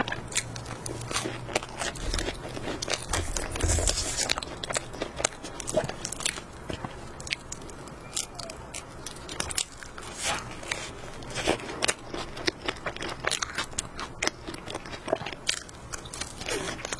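Close-miked biting and chewing of flaky puff-pastry cream puffs, the crisp crust crackling and crunching in many small sharp snaps, loudest about three to four seconds in.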